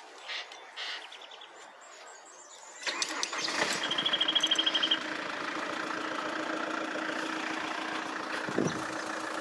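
Holden Captiva diesel engine, fitted with an open pod air filter, cranked by the starter about three seconds in. It fires after about two seconds of cranking and settles into a steady idle.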